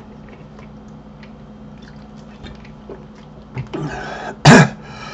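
A man clearing his throat: a rough rasp about three and a half seconds in, then a short, loud cough-like burst near the end. Before it there is only a faint steady hum with a few soft clicks.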